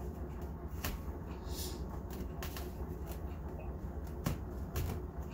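Hands dredging a piece of fish in a flour-and-cornmeal coating in a glass bowl: dry rustling and patting, with a few light taps against the glass, over a steady low hum.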